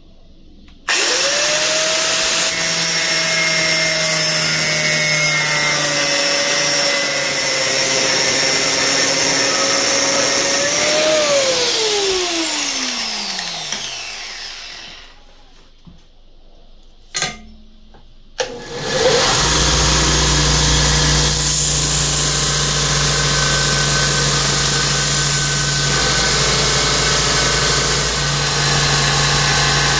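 An angle grinder with a cut-off wheel cuts through the steel of an old tiller rotary blade with a steady whine, then is switched off and winds down with a falling whine. After two sharp clicks, a belt grinder starts and runs steadily, grinding the steel blank.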